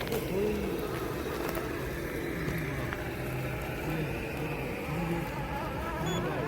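Electric motor and geartrain of a scale RC crawler whining as it is driven slowly over rough ground, the pitch rising and falling in short spurts with the throttle.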